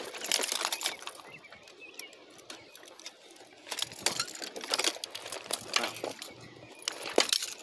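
Irregular clicks, knocks and rustling from a handheld phone being moved and handled close to its microphone.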